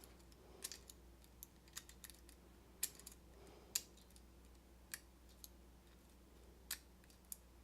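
Faint, irregular clicks of a lock pick and tension wrench working the pins of a door lock cylinder, about a dozen scattered ticks.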